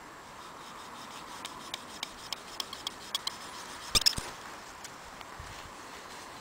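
Knife blade cutting the peeled birch-twig plug in a birch tap hole flush with the bark: a run of small sharp clicks, about three a second, as the blade works into the wood, then a louder cluster of snaps about four seconds in.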